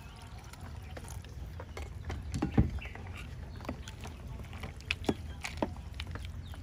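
A metal spoon stirs a wet salad of sliced shallots, herbs and chopped peanuts in a plastic bowl, with liquid sloshing and the spoon clicking and knocking against the bowl. The loudest knock comes about two and a half seconds in. A steady low rumble runs underneath.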